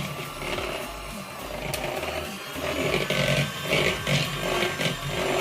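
Electric hand mixer running, its beaters whipping room-temperature butter in a bowl, with a rhythmic scraping as they move around it.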